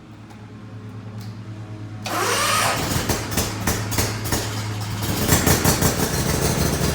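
Riding lawnmower engine starting: a steady low hum, then about two seconds in the engine catches and runs louder, and it picks up again around five seconds in.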